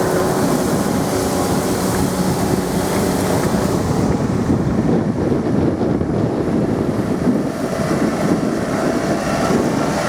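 Case tractor engines running under load while ploughing, with wind buffeting the microphone.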